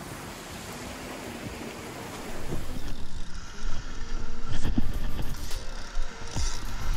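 Surf washing against the jetty rocks with wind. About two and a half seconds in, it turns louder and gustier as wind buffets the microphone.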